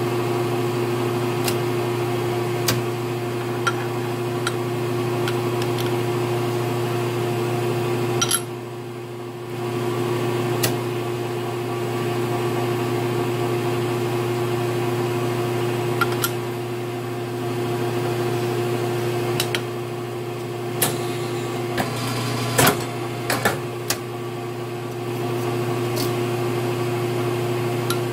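Small injection moulding machine humming steadily with a low, even drone, the hum dipping briefly about eight seconds in. Light metal clicks and taps as the steel mould plates are handled, with a quick cluster of them near the end.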